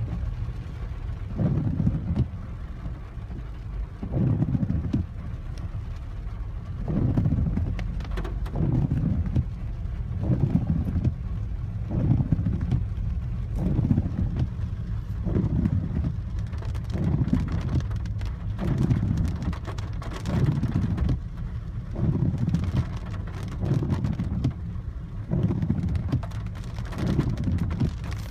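Heavy rain on a Peugeot 408, heard from inside the cabin. The windscreen wipers sweep about once a second, each pass a low swish over the car's steady low rumble.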